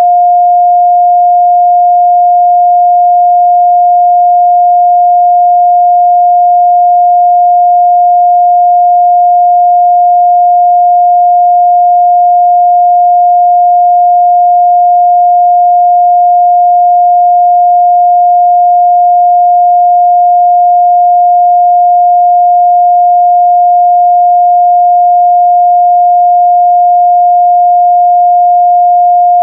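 Continuous 708 Hz sine-wave test tone, a single pure steady pitch at constant loud level, used to check the midrange response of speakers and headphones.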